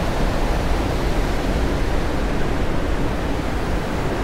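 Steady rushing of river water pouring over a low dam.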